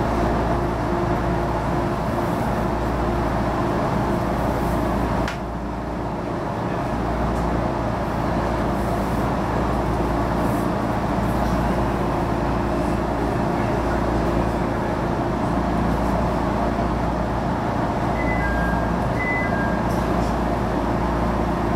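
Running noise of a JR East HB-E210 series hybrid diesel train heard from behind the driver's cab: a steady rumble with a low hum. The level drops suddenly about five seconds in, then slowly builds back, and two short beeps sound near the end.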